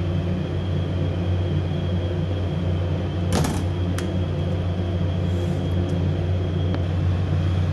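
Steady low hum of kitchen ventilation fans, with a single short knock about three and a half seconds in.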